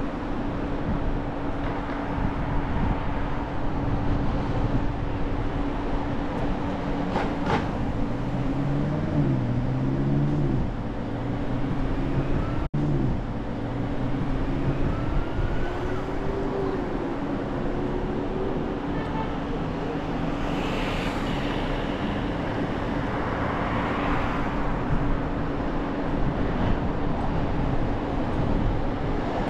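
A car driving along a city street: steady road and engine noise with a low hum, and passing traffic. The sound drops out for an instant about 13 seconds in.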